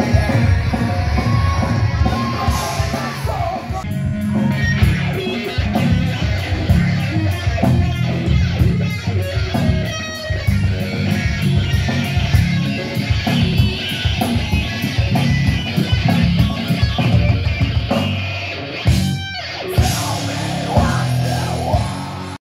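A live heavy rock band playing, with distorted electric guitar, bass guitar and drum kit. It cuts off abruptly just before the end.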